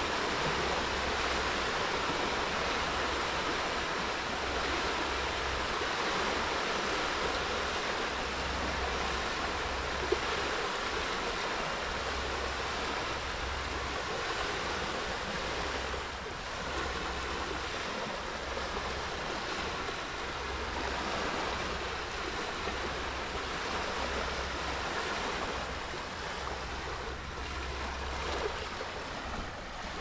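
Small waves of a calm sea lapping and washing onto a sandy beach in a steady, even wash. A low rumble comes and goes underneath, and there is one short click about ten seconds in.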